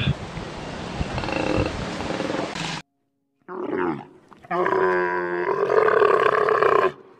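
A koala bellowing with a noisy, rasping sound for nearly three seconds. After a short gap, a camel gives a long, loud groaning roar whose pitch wavers, lasting about two and a half seconds.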